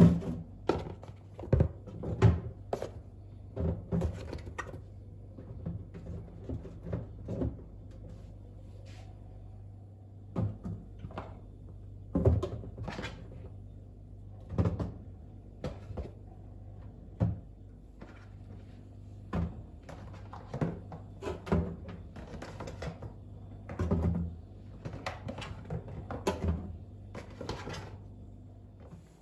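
Kitchen handling sounds: irregular clunks and knocks of containers, doors and objects being moved and set down, one every second or so, over a steady low hum.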